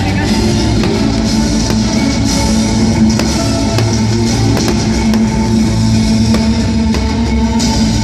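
Loud music with drums and guitar and a steady beat.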